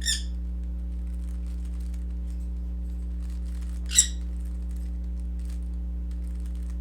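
Steady low electrical hum with faint clicking of a Rubik's cube being turned. Two brief high-pitched squeaks cut through, one at the start and a louder one about four seconds in.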